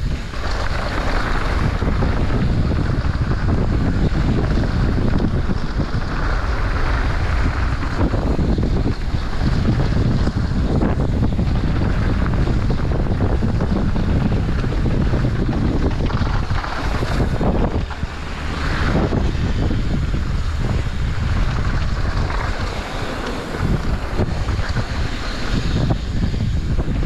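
Mountain bike descending a dirt trail at speed: wind rushing over the action camera's microphone with a steady low rumble from the tyres and trail, dipping briefly a couple of times.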